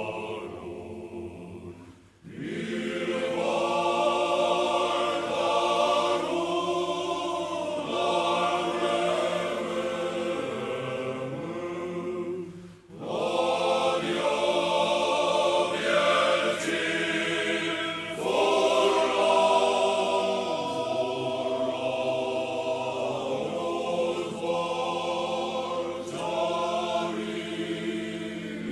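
Background choral music: a group of voices singing sustained notes, with two brief pauses, about two seconds in and near the thirteenth second.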